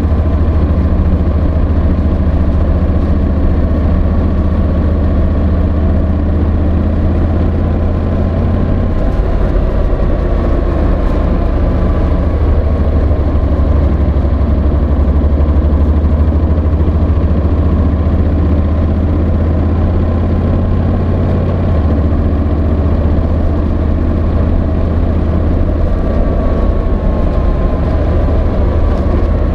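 Honda NC750X motorcycle's parallel-twin engine running steadily, its pitch stepping to a new level twice, about nine seconds in and again about twenty-two seconds in.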